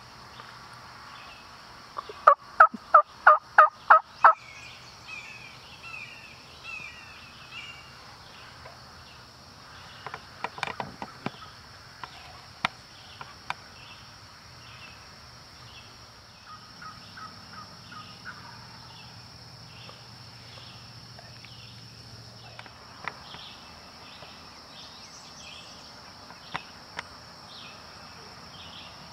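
Turkey yelps: a loud series of seven evenly spaced yelps, about three a second, starting about two seconds in, with fainter turkey calls later on. A steady high insect hum runs underneath.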